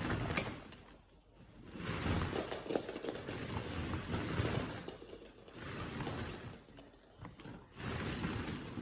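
Plastic balls in a ball pit rustling and clattering as a dog digs and burrows through them, in rushing surges broken by a couple of short pauses.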